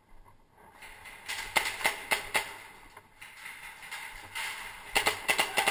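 Airsoft gas blowback pistols, Hi-Capa type, firing in two quick strings of pops: about four shots a second and a half in, and about five more near the end.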